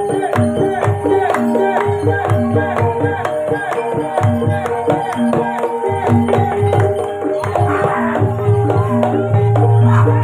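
Live gamelan music accompanying an ebeg trance dance: struck, ringing melody notes in a steady interlocking rhythm over hand-drum beats and sharp metallic clicks. A held low tone comes in near the end.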